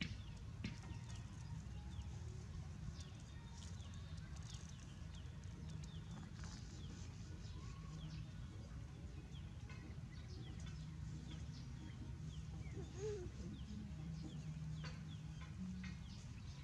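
Soft rustling and crackling of dry corn leaves and a woven plastic mat as a baby monkey handles the leaves and moves about, over a low steady rumble.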